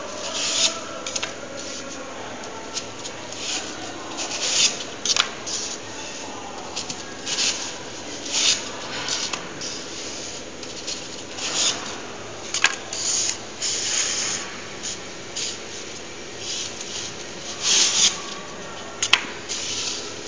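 Cut pieces of EPS foam rubbing and scraping against each other as they are slid out of the block by hand, in irregular scratchy bursts, with a couple of sharp clicks.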